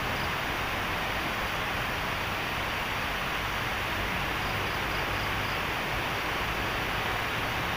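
Steady, even rushing noise that does not change throughout, with a few faint high chirps near the start and about halfway through.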